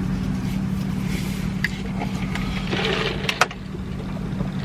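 A steady low hum throughout, with the sounds of someone eating fried chicken over it: a crisp crackling patch and two sharp clicks about three seconds in.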